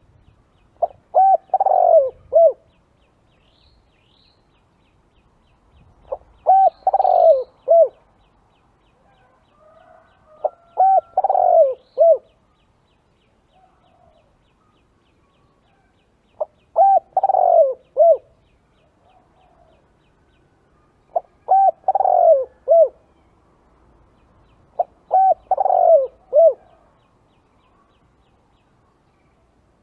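Spotted dove cooing: six phrases of a few low, falling coo notes each, repeated every four to five seconds, the lure call used to draw wild spotted doves in.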